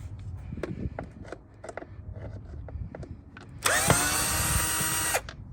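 Power drill spinning up with a rising whine and running steadily for about a second and a half to back out a bolt on a scooter's plastic body panel, then stopping. Before it come a few light clicks and taps of handling.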